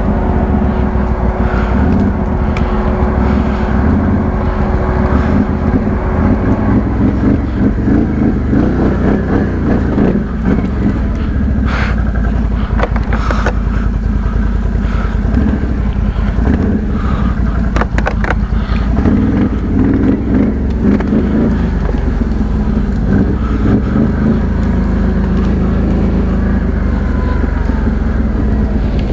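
ATV engine running steadily while riding an off-road trail, with a few sharp knocks around the middle.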